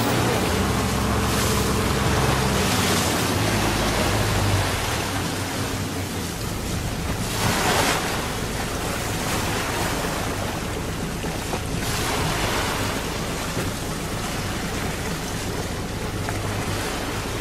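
Wind rushing over the microphone and sea water washing against a moving wooden fishing boat, surging in gusts a few times, with a low engine drone under it.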